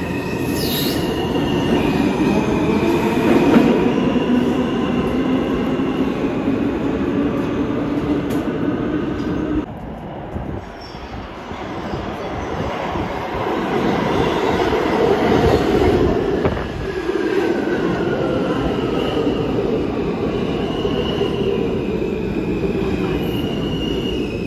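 New York City subway train running with its steel wheels squealing against the rails, over a continuous rumble. The sound drops briefly about ten seconds in, then builds again.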